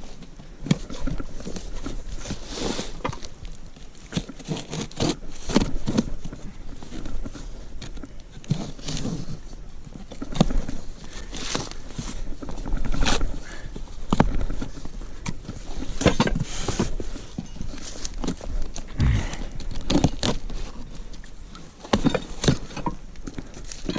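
A cardboard shipping box being opened and unpacked: rustling and scraping of cardboard and packing, with irregular knocks and clatters as sawmill parts are handled.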